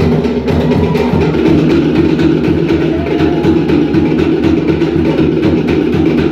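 Cook Islands drum ensemble playing a fast, steady rhythm of sharp wooden strokes over deeper drum beats, accompanying a dance.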